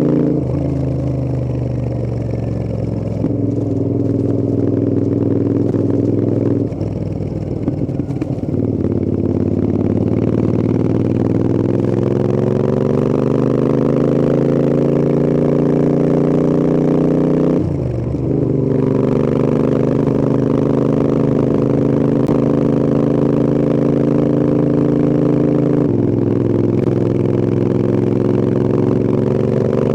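Royal Enfield Interceptor 650's 270-degree parallel-twin engine and exhaust under way. The revs climb steadily for several seconds, fall sharply at a gear change, then hold steady, with a rougher off-throttle moment and another brief shift in pitch.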